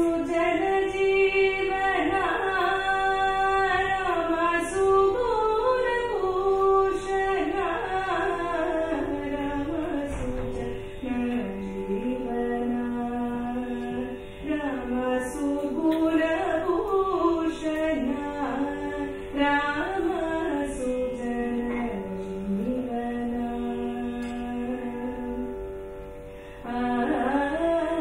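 A solo voice singing a gliding, ornamented Indian devotional melody over a steady drone, with a brief dip near the end before the line picks up again.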